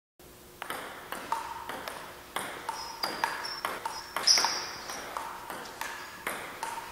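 Table tennis rally: the ball struck back and forth by paddles and bouncing on the table, a quick run of sharp pocks with a short ring, about two to three a second.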